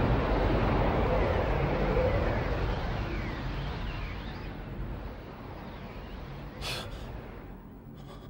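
A dense rumbling roar that fades away over several seconds, with a short sharp crack near the end and a fainter one just after.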